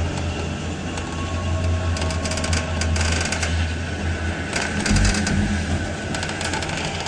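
Elevator car in motion: a steady low hum with bursts of rapid mechanical rattling and clicking, the first about two seconds in.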